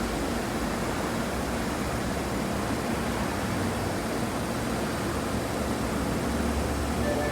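Steady hum and hiss of a subway train's equipment and the station surroundings at the platform, unchanging throughout.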